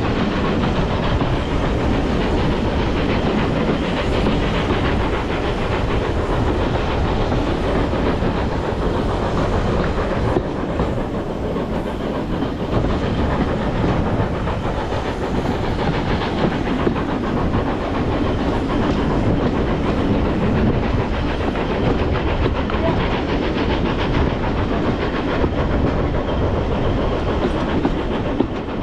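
Train running along the track: a steady rumble and rattle of the carriages over the rails.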